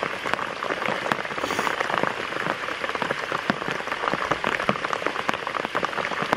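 Rain falling on open lake water: a dense, steady spatter of many individual drops.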